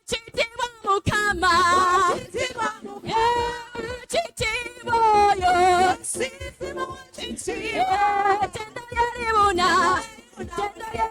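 A single voice singing a worship song unaccompanied. The long held notes waver with heavy vibrato and ornamented runs.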